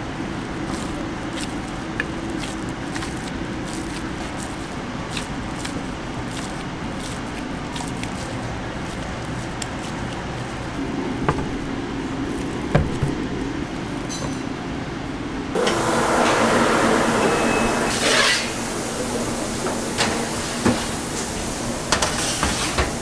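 Street-food kitchen sounds: a steady hum with light clicks of utensils, then about two-thirds of the way in a loud hiss starts suddenly and runs for a few seconds before dying down.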